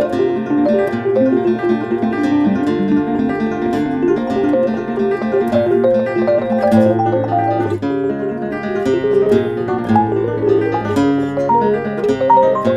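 Acoustic guitar music: plucked, picked notes over a moving bass line, with a new note struck several times a second.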